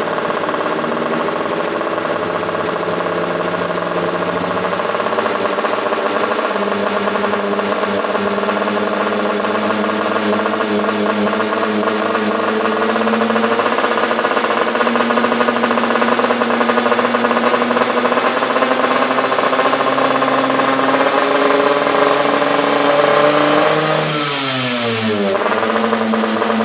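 Yamaha RX-King 135 two-stroke single-cylinder motorcycle engine idling fast with a slight cough, which the owner says does not matter. The revs creep slowly up, then fall away quickly about 24 seconds in and settle into a steady idle.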